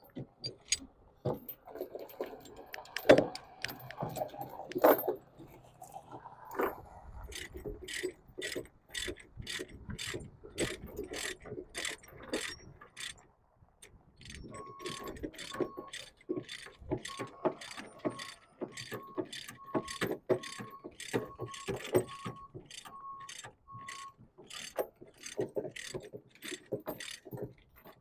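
Ratchet-type chain load binder being cranked tight on a tie-down chain, its pawl clicking about twice a second in a steady run, with knocks of the chain and binder in the first few seconds.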